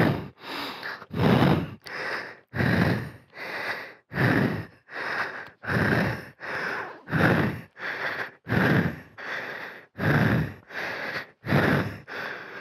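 A man panting hard, heavy breaths in and out in a steady rhythm of roughly one full breath every second and a half: he is out of breath from exertion.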